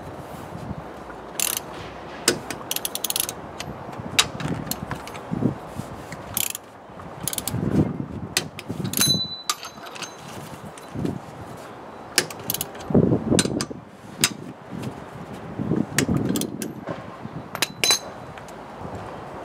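Socket ratchet wrench clicking in short runs on the wheel bolts of a car wheel, with metal clinks of the socket as the bolts are wound in and tightened.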